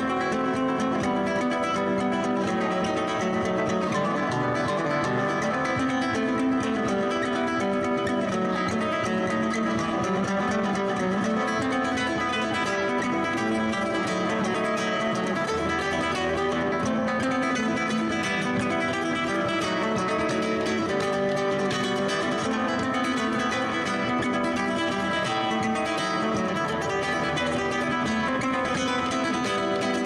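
Background music: a guitar piece with plucked and strummed strings, playing at an even level throughout.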